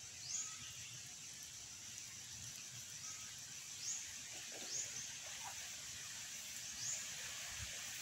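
A bird gives short, high chirps that sweep upward, four in all at uneven gaps, over a steady outdoor hiss. There are faint low bumps near the end as the stick fence is handled.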